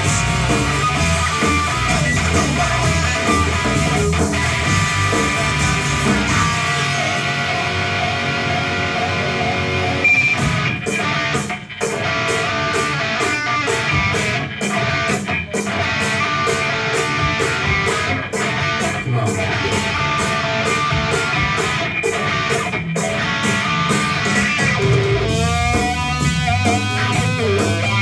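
Electric guitar played through an amplifier in a rock style, with a steady picked rhythm. Near the end a wah pedal sweeps the tone up and down.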